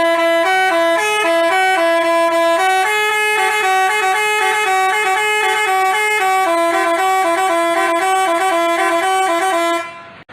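Bus 'basuri' telolet horn playing a tune: a run of held, stepping horn notes that cuts off sharply near the end.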